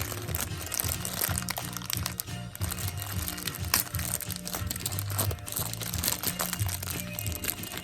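Plastic gashapon packaging crinkling and crackling in irregular bursts as it is handled and opened, over background music.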